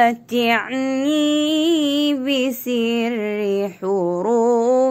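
A woman sings an Arabic nasheed solo, slowly, holding long notes with vibrato. She takes two short breaths between phrases.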